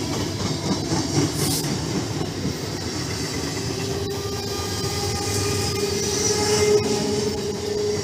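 A 12-car EMU local train running past at speed: a steady rumble of steel wheels on rail, with a few sharp clicks over rail joints and a thin steady whine underneath.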